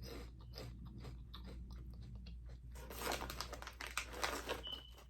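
Crunchy potato chips being bitten and chewed close to the microphone, a run of crisp crackling that gets denser and louder a little past halfway. The chips are goat-cheese flavoured.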